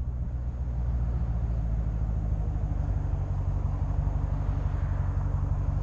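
Dodge Challenger Scat Pack's 6.4-litre HEMI V8 with its mufflers deleted, cruising at steady throttle with a steady low drone.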